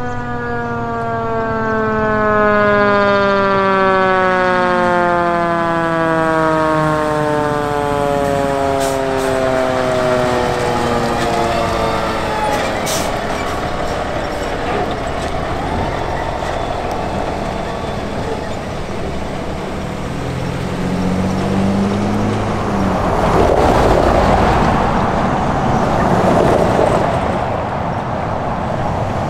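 Fire engine siren winding down in one long, slowly falling tone over about ten seconds. About twenty seconds in it rises briefly again, and the truck's engine and tyre noise grows loud as it passes near the end.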